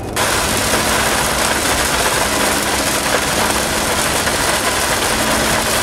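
Heavy rain beating on a truck's windshield and body while driving, a dense steady hiss with the engine's low hum underneath.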